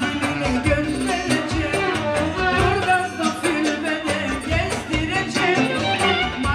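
Music with a singing voice over instruments and a steady percussive beat.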